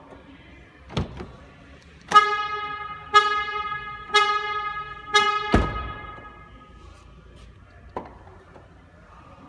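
Lifan X70's car horn sounded by its factory alarm: four honks about a second apart, each fading out. A heavy thud comes just after the last honk, with faint clicks about a second in and near the end.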